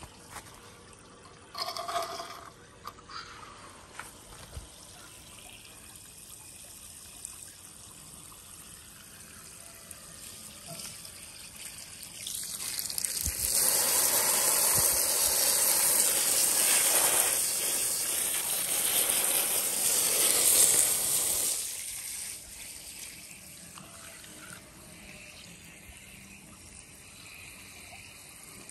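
Running water, loud and steady for about ten seconds starting about twelve seconds in, with a few light clicks near the start.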